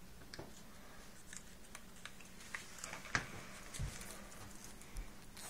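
Faint handling noise of small cardstock papercraft pieces being lined up and fitted together by hand: scattered soft paper ticks and clicks, with a sharper tick about three seconds in and a low bump just after.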